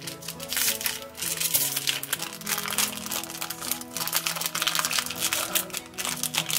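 A small plastic blind bag crinkling as it is opened and handled, irregular crackling throughout, over background music.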